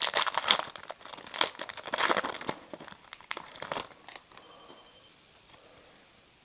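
Foil trading-card pack wrapper crinkling and tearing as a pack is opened, with the cards handled. The crackling is busy for about four seconds, then dies away.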